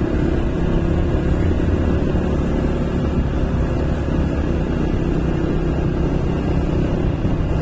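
Motorcycle engine running steadily, heard from the moving bike with wind noise on the microphone.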